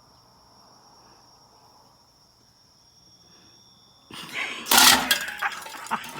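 Crickets chirping steadily, then about four seconds in a sudden loud crash and clatter as a bird bath is knocked over and broken.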